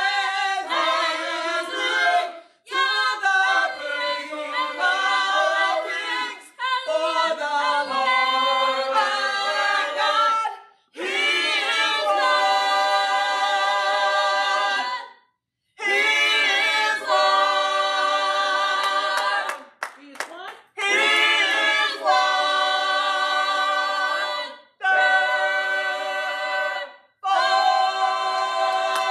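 A small group of women and men singing a gospel song a cappella in harmony, in phrases of long held, wavering notes broken by short pauses.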